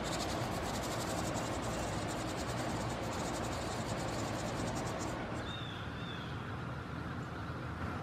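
Wren nestlings inside a nest box begging as the parent feeds them: a rapid, high-pitched run of buzzy chirps, many a second, that stops about five seconds in. A couple of short chirps follow, over steady background noise.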